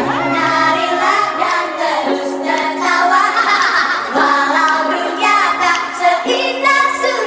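Music with singing, long held notes that change every second or two.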